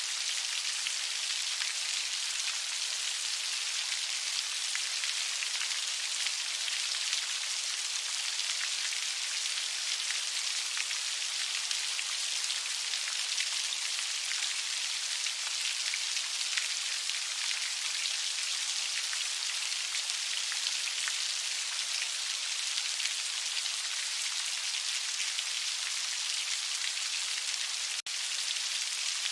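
Heavy rain falling steadily: a dense, even hiss of countless drops, mostly high-pitched with little low rumble. A brief, sudden drop-out in the sound comes near the end.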